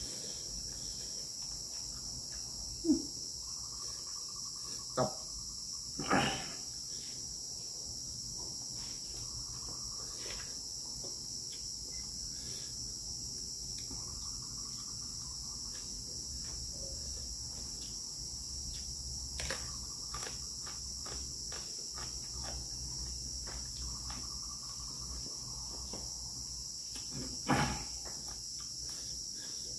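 Steady high-pitched insect chirring, like crickets, with a few short knocks or clatters scattered through it, the loudest near the end.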